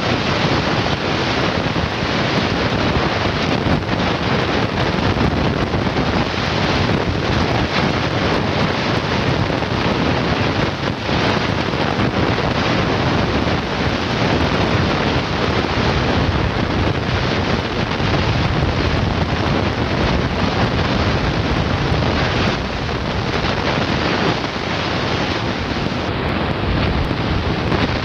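Wind buffeting the camcorder microphone: a loud, steady rushing noise with brief dips.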